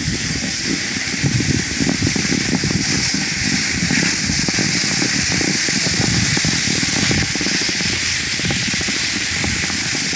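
Wind buffeting and crackling on a handheld phone's microphone while sliding down a ski slope, over a steady hiss of snow scraping under the rider.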